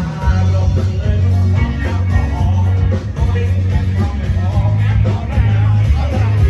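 Live rock band playing loud music, with electric guitar over a moving bass line and some singing.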